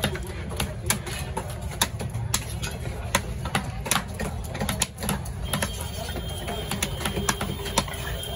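Heavy knife chopping a spadefish into pieces on a wooden block: quick, irregular sharp knocks, a few a second.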